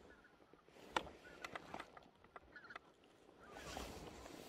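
Faint, distant geese calling across an otherwise quiet field, with a few small clicks and rustles from handling; a soft rustle swells near the end.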